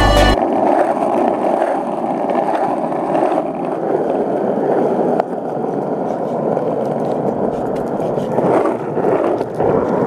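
Skateboard wheels rolling over an asphalt path, a steady rough rumble, with a single sharp click about halfway through.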